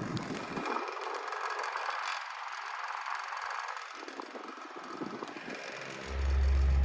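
Pelonis table fan running on high: rushing air from the blade, with the loose front badge rattling. The borrowed blade makes the fan vibrate and shake. About six seconds in, a loud steady low hum sets in and becomes the loudest sound.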